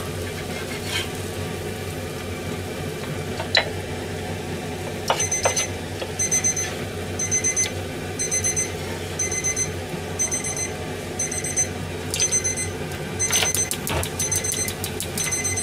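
Electronic appliance beeping: a short, high beep about once a second, starting about five seconds in. Under it, hamburger patties sizzle steadily in a sukiyaki pan, with a few sharp clicks.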